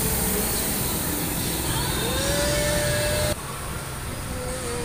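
Steady rushing noise while riding a spinning amusement ride, with a few faint gliding tones over it; the rush drops suddenly about three seconds in.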